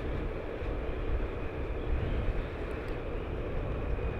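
A moving road vehicle: a steady engine drone under a dense low rumble of road and wind noise, with a faint, steady high whine over it.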